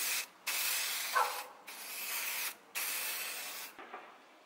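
Aerosol primer spray can hissing in repeated bursts of about a second each, with short pauses between them as the nozzle is pressed and released. The spraying stops near the end.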